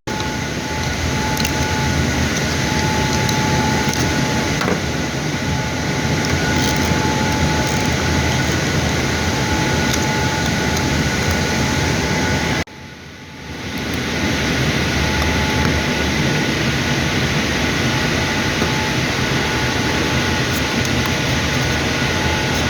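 Steady, loud machine noise with a few thin whining tones in it. It cuts out suddenly about halfway through, then builds back up over about a second and runs on.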